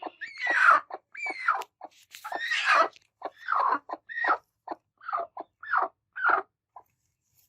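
Broody hens making a rapid run of short, harsh squawks and growls, several sliding down in pitch. It is the angry defensive calling of hens guarding their nests. The calls stop about a second before the end.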